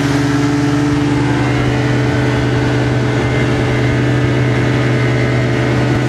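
Motorboat engine running steadily at an even speed, with a steady rush of wind and water, heard through a camera microphone covered by a fur windscreen.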